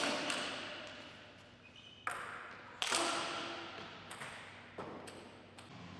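Celluloid-type table tennis ball clicking off bats, table or floor, each knock echoing in a large hall: two quick knocks at the start, then single sharp ones about two, three and five seconds in.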